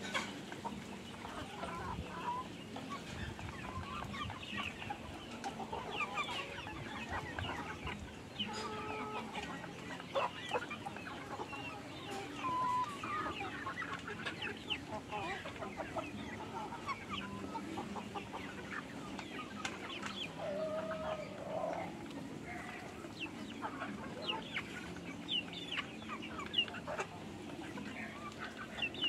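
A large flock of chickens clucking, with many short calls overlapping one another without a break.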